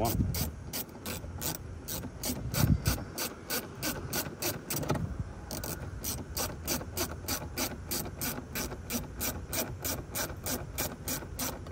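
A ratcheting screwdriver clicking steadily, about four clicks a second, as a plastic dash trim panel screw is done up lightly to 2.5 newton metres. There is a low thump about two and a half seconds in.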